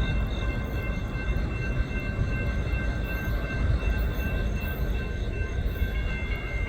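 Railroad crossing bells ringing steadily, their high tones held over the low rumble of a freight train.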